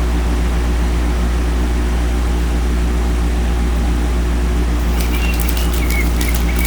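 A loud, steady low mechanical hum fills the room without change. From about five seconds in, crisp clicks and crinkles come through on top of it as trading cards and pack wrappers are handled.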